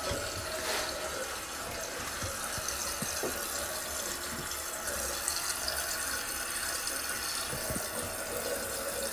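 Toto one-piece toilet tank refilling through a newly installed fill valve: a steady hiss of running water.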